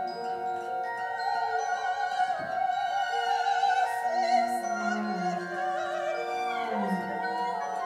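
Operatic singing: a high voice holds long notes with a wide vibrato over a small instrumental ensemble playing sustained chords.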